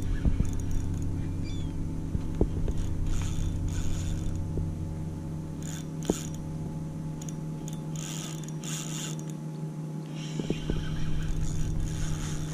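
Spinning reel worked against a hooked fish that is fighting hard: a steady mechanical gear hum, broken several times by short irregular bursts of ratcheting.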